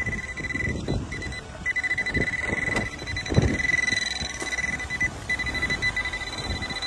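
A handheld pinpointer metal detector sounds a continuous high-pitched alert tone as its tip is held over buried metal, signalling a target in the soil. The tone drops out briefly about a second in and again just after five seconds. Dull scrapes and knocks come from the probe and hand working the dirt.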